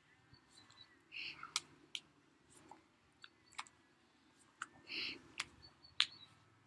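Faint, scattered sharp clicks, the loudest about six seconds in, with two brief hissing sounds about a second in and about five seconds in.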